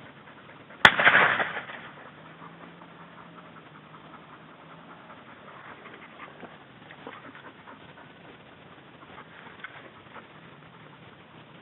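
A single shotgun shot about a second in, its report echoing away over roughly a second.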